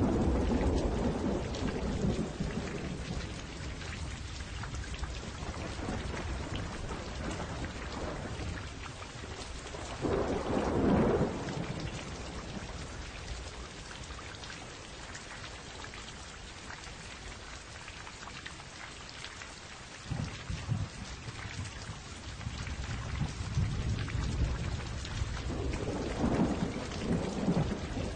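Thunderstorm: steady rain with rolling thunder that swells at the start, again about ten seconds in, and once more near the end.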